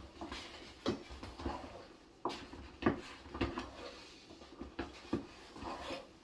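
Wooden cooking stick knocking and scraping against a metal pot as thick ugali is stirred fast, in a string of irregular knocks.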